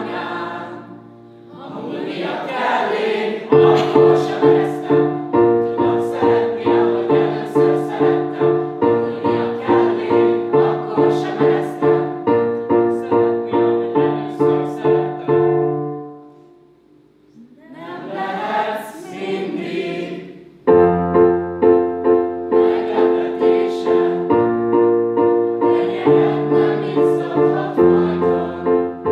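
Music: piano or keyboard chords played on a steady beat, with voices singing. It drops away briefly twice.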